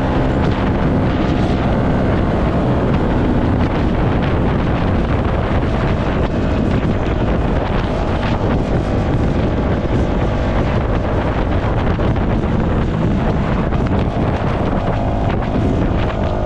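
Yamaha MT-125's single-cylinder engine running at a steady pace while riding, under heavy wind noise buffeting the microphone.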